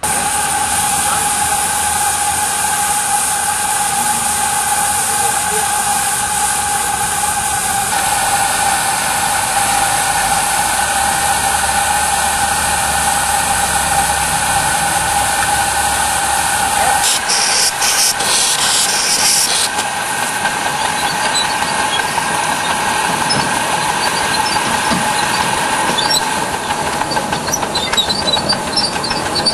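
Ride-on live-steam miniature locomotive hissing steadily, with a steady tone running through the hiss. Just past the middle a louder, sharper blast of steam hiss lasts about two and a half seconds.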